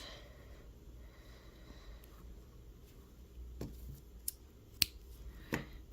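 Quiet room tone with a few faint, sharp clicks and taps in the second half, from hands handling the yarn and needle while tying off the yarn end.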